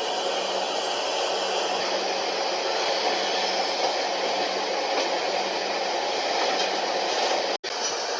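Steady rushing rumble of a moving passenger train, heard from inside the carriage, with a faint steady hum under it. The sound cuts out for an instant near the end.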